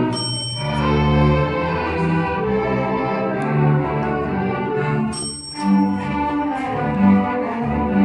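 A school string orchestra of violins, cellos and double bass plays. It is broken twice, near the start and about five seconds in, by a single ring of the bell on the conductor's stand. At each ring the music cuts off and jumps to a different tune.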